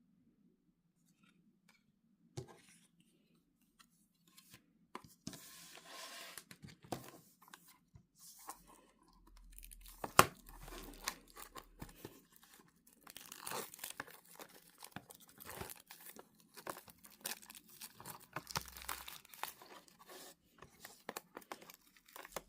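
Packaging being torn open and crinkled by hand in irregular rustling bursts that begin a few seconds in, with a sharp click about ten seconds in.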